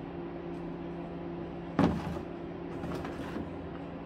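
Handling noise from an air stone and air tubing being fitted and laid in a plastic tote: one sharp knock about two seconds in, then a few lighter taps and rustles, under a steady low hum.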